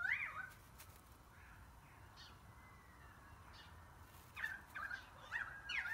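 Short, high animal calls with quick sliding pitch: one sharp call at the start, then a cluster of four or five calls near the end, over a faint low background hum.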